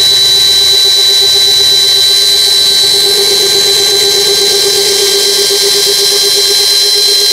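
Kingblue 13 mm keyless-chuck cordless drill running steadily under load, its motor giving a constant whine as a spiral wood auger bit bores into a log.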